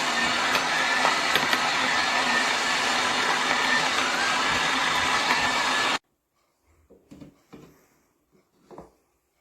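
Portable electric coffee grinder with a ceramic conical burr running steadily with a faint motor whine, then stopping abruptly about six seconds in. A few faint short knocks follow.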